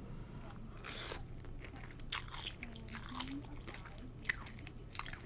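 Mouth sounds of eating a bowl of instant pho with shrimp: wet chewing and crunching in an irregular rhythm, with a few sharper crunches.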